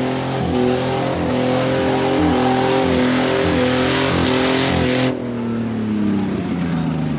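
Car engine held at high revs during a burnout, its tyres spinning and screeching in a continuous hiss. A little after halfway the tyre noise cuts off suddenly and the engine revs fall away.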